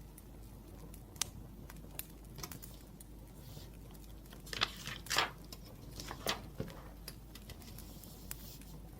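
Wood fire crackling, with scattered sharp pops, and a few louder short scratchy rustles about halfway through.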